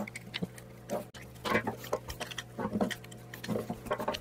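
Metal bar prying apart a corroded, rubber-bonded steel engine mount on a steel workbench: irregular scraping and knocking as the casing halves are levered loose.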